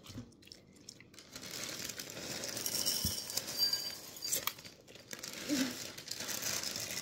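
Close crinkling and rustling with small crackles, building up after the first second or so and running on unevenly.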